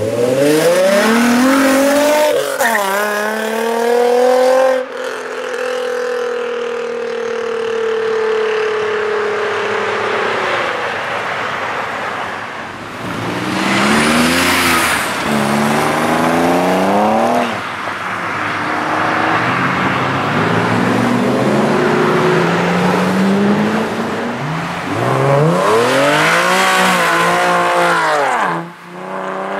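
Sports car engines accelerating away one after another, each rising in pitch through the gears with short drops at the shifts, among them a white Nissan 300ZX and an Infiniti G coupe. Between pulls one engine holds a steady tone that sinks slightly for several seconds.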